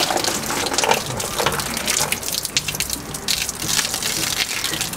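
Water splashing and swishing in a foam-filled plastic baby bath as hands work through it, in irregular, uneven splashes.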